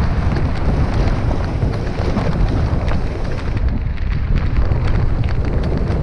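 Steady wind buffeting on the microphone from a mountain bike descending a downhill trail, with the rolling rumble of the tyres and many small rattling clicks and knocks from the bike over rough ground.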